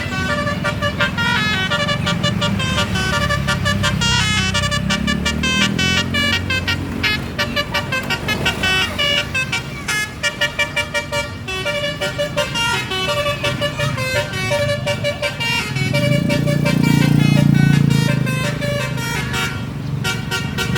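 A bus's basuri 'telolet' horn, a set of musical horns, playing a quick tune of short stepping notes, over the bus's engine running. The engine grows louder for a couple of seconds near the end.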